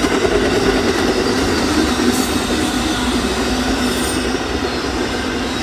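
Amtrak Auto Train's enclosed auto-rack cars rolling past close by: a steady, loud noise of steel wheels running on the rails.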